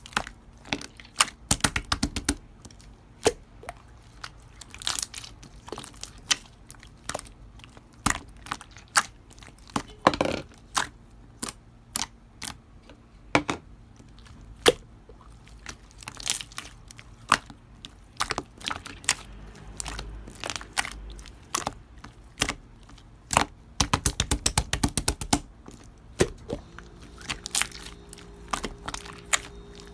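Pink slime being played with by hand, giving irregular sharp clicks and pops of trapped air, with a quick run of clicks about four-fifths of the way through.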